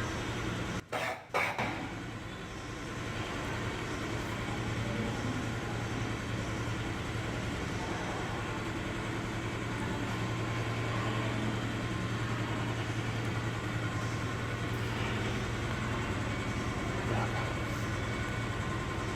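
Steady mechanical rumble with a constant low hum, broken by a brief dropout about a second in.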